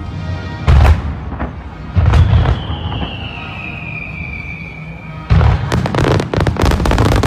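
Aerial fireworks shells bursting: single heavy booms about a second in and two seconds in, then from about five seconds in a rapid barrage of bangs and crackling as many shells go off together.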